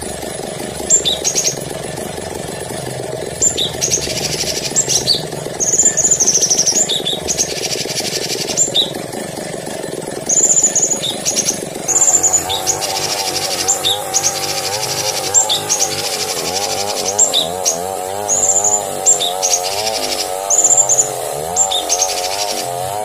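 Songbird masteran recording: short, high chirps repeated again and again, over a lower wavering trill that comes in about halfway through.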